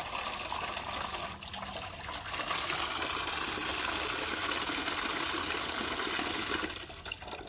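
Water pouring steadily from a tap into an aluminium basin, turned off near the end.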